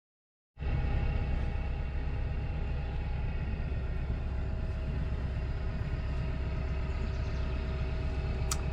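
Sailboat's inboard engine running steadily while motoring, a low drone with a steady hum above it; it cuts in abruptly about half a second in.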